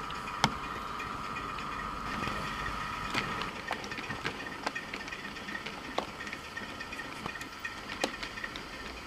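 Model train running on its layout: a DCC sound decoder plays diesel engine sound through the locomotive's small speaker as a steady tone that stops about three and a half seconds in, while the wheels click irregularly over the rail joints.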